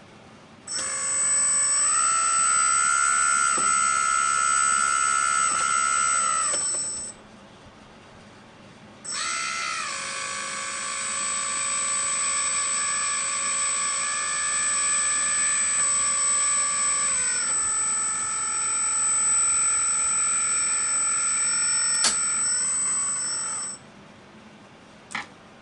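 Small electric hydraulic pump of a scale RC truck whining steadily while a telescopic cylinder lifts and lowers the tipping frame. It runs in two stretches, about six seconds, then a pause of two seconds, then about fifteen seconds, with a few sharp clicks near the end.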